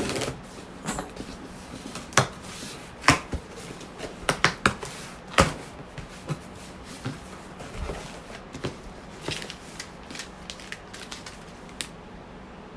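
Hands unpacking a shipping package: irregular sharp clicks, crackles and rustles of the packaging, busiest in the first half.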